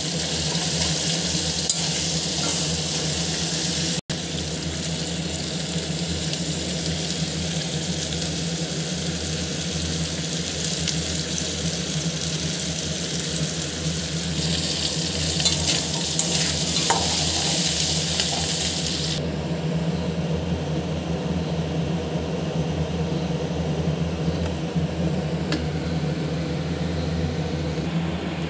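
Fish head pieces frying in oil in a kadai, sizzling steadily, with a metal spatula stirring and knocking against the pan now and then. The sizzle drops off abruptly about two-thirds through, leaving a steady low hum.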